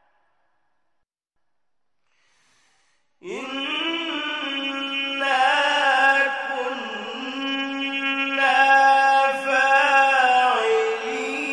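Near silence, then about three seconds in a man starts reciting the Quran in the slow, melodic mujawwad style, holding long drawn-out notes that waver and turn in ornamented runs.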